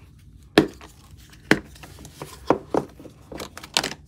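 Latches of a hard plastic Boldr watch case snapping open and the lid being handled: a series of sharp plastic clicks and knocks, the loudest about half a second in, at one and a half seconds and near the end.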